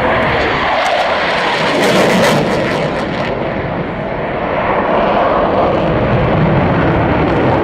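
Fixed-wing aircraft flying past, a loud steady rush of engine noise that dips slightly midway and swells again.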